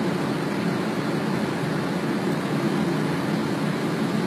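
Steady flight-deck noise of an airliner in flight on its descent to land: an even rumble with a faint steady hum and no distinct events.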